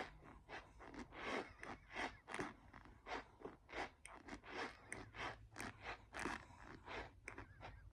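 A person chewing a mouthful of raw cornstarch, with squeaky, crunchy chewing in a steady rhythm of about two to three chews a second.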